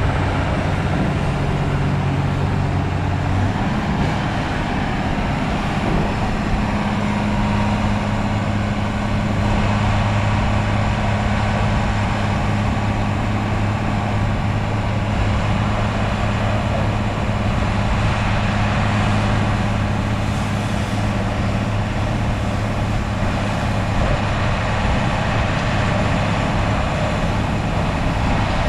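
Diesel engine of a 1997 ABG Titan 273 asphalt paver running steadily; about three and a half seconds in, its speed rises and it settles at a higher, steady hum.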